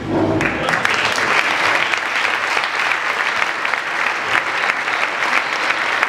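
Crowd applauding with steady clapping that starts about half a second in, just as the speech ends.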